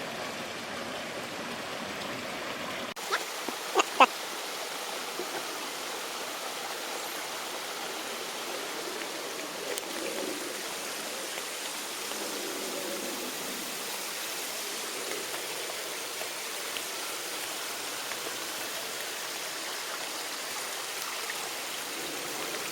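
Steady rush of flowing water from a rainforest stream. A few sharp clicks or knocks stand out about four seconds in.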